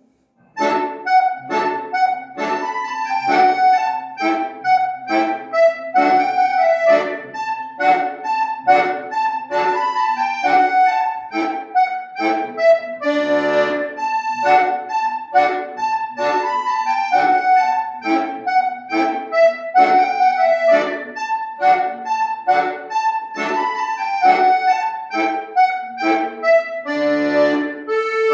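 Solo accordion playing an old-style dance piece: a melody over short, evenly spaced bass notes and chords. It starts about half a second in.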